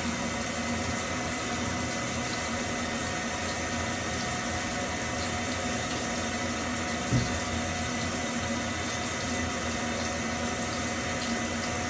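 Water running steadily, an even rushing like a tap left on, with a single short knock about seven seconds in.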